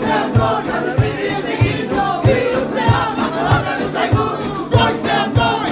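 Live band music: several voices singing together over a brass-and-strings accompaniment with saxophones, driven by a steady low thump of the beat about every 0.6 seconds.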